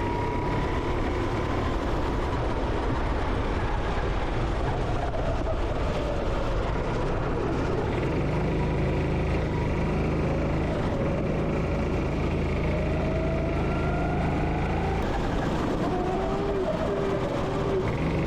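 Go-kart engine heard onboard during a lap, its pitch rising and falling with the throttle through the corners, over a steady rushing noise.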